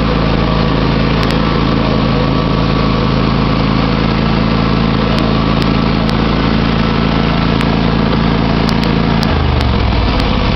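John Deere X500 Multi-Terrain lawn tractor's 25 hp engine running steadily while the tractor is driven; about nine seconds in the engine note drops as it slows down.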